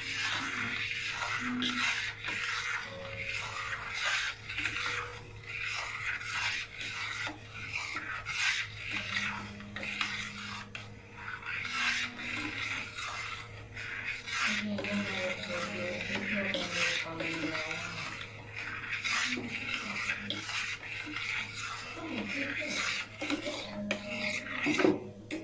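A spoon stirring and scraping around a pan in quick, irregular strokes, mixing gelatin into the warm mirror-glaze mixture.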